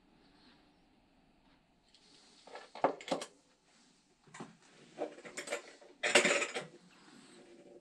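Hard objects being handled on a workbench: a run of clinks and knocks, with the loudest clatter about six seconds in.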